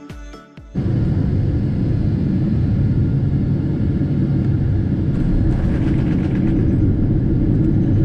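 Music stops under a second in, cut off by the loud, steady rumble of a Boeing 777-200 on the runway during landing, heard from a window seat inside the cabin. A brief swell of higher-pitched noise comes about five to six seconds in.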